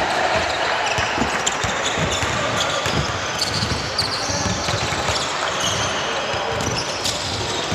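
Basketball game in play: the ball bouncing on the court in a run of irregular thuds, with a few short high squeaks.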